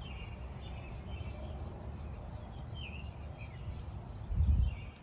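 Outdoor ambience: small birds chirping in short, scattered calls over a steady low rumble, with a brief louder low rumble near the end.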